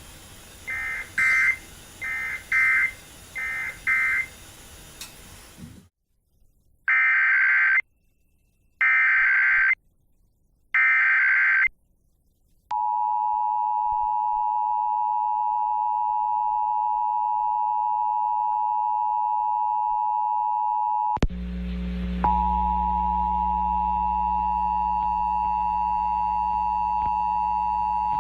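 Emergency Alert System SAME data tones: three short end-of-message bursts, then after a brief silence three longer, louder header bursts. Each burst is a rapid warble between two pitches. The two-tone EAS attention signal follows, a steady dual-tone alarm running to the end, with a click and an added low hum about 21 s in.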